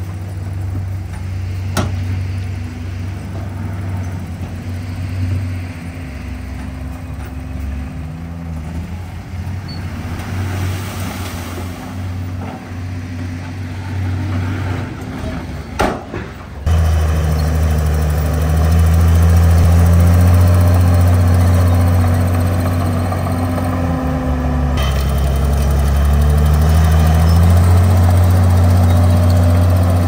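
Heavy diesel engine of earthmoving machinery running, its pitch dipping and rising as the load changes. About halfway through, the sound cuts abruptly and comes back louder.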